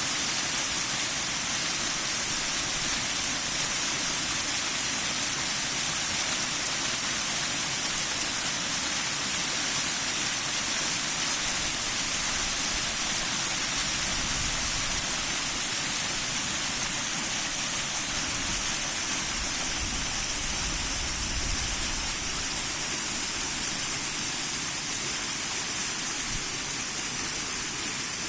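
Water spilling over a small river dam into a pond: a steady, even rush of falling water. Brief low rumbles of wind on the microphone come about halfway through and again a little later.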